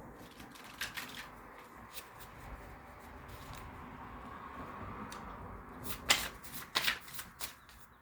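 Tarot cards being shuffled: a soft, steady rustle with a few sharp card snaps about a second in and a louder cluster of snaps near the end.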